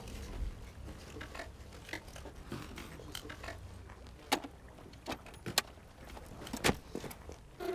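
Handling a scooter with its engine off: faint scrapes and rustles, then a few sharp clicks and knocks in the second half, over a low steady rumble.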